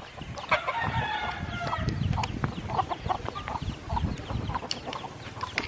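Chickens clucking, a run of short calls with a longer drawn-out call about half a second in.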